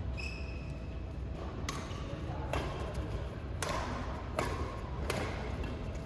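Badminton rally: rackets striking a shuttlecock, about five sharp hits roughly a second apart, ringing in a large hall, with a short squeak near the start.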